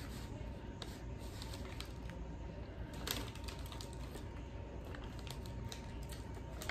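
Scattered small clicks and crinkles as a doughnut is handled in its paper bag and eaten, the sharpest about halfway through, over a low steady room hum.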